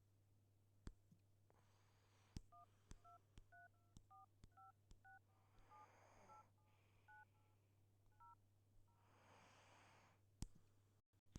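Faint phone keypad dial tones (DTMF): a quick run of about eighteen short two-tone beeps, as digits are pressed on the dialer, with a few sharp taps around them.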